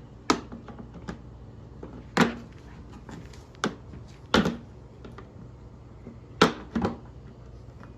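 Sharp plastic knocks and clicks, about half a dozen at irregular intervals, as the dirt bike's air filter and side plastic panel are fitted back into place.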